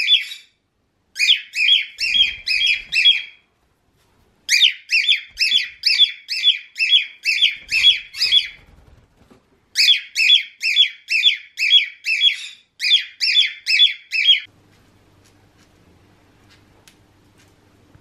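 Cockatiel screaming: loud, shrill, repeated calls at about two to three a second, in runs broken by short pauses, a territorial display. About fourteen seconds in the calls stop, leaving a faint hum and a few light ticks.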